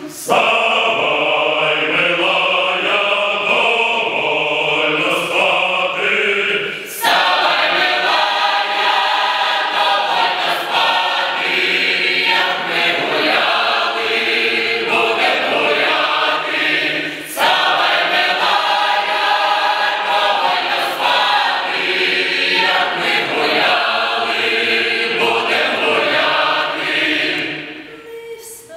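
Mixed choir of men's and women's voices singing a Ukrainian folk song in several parts. There are short breaks between phrases about 7 and 17 seconds in, and the singing grows quieter near the end.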